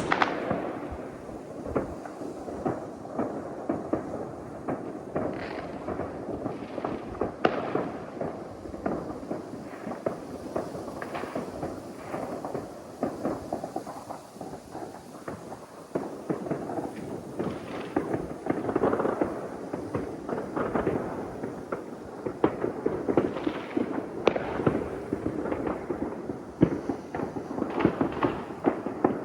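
Fireworks and firecrackers going off all around, a constant crackle of bangs and reports overlapping one another over a rolling rumble of more distant explosions, with a few louder nearby bangs right at the start.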